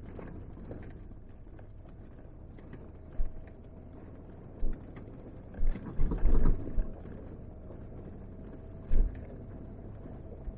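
Vehicle driving on a dirt road, heard as a steady low rumble with a few short thumps and jolts, the loudest a cluster of knocks about six seconds in.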